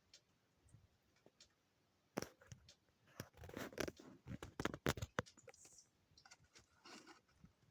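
Paper medicine packaging being handled: irregular crinkling and rustling with small clicks, starting about two seconds in after a near-quiet start.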